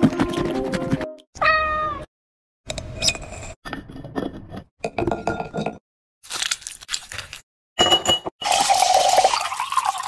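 Music ends about a second in, followed by a single short meow. Then come choppy bursts of drink-making sounds: ice and fruit clattering as they are scooped into a glass, and near the end fizzy soda poured from a can, hissing into the glass.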